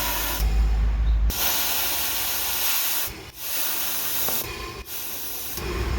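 Compressed air hissing out of a leak in a 2001 BMW 330i's M54 intake during a boost leak test, with a brief drop-out about three seconds in and another near five seconds. A huge leak, which the mechanic places in the crankcase ventilation (CCV) system.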